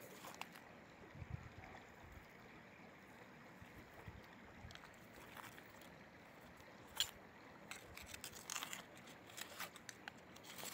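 A metal crevicing tool scraping and picking packed gravel out of a bedrock crevice. Scattered small scratches and clicks of metal on rock, with one sharp click about seven seconds in, over a faint steady hiss of river water.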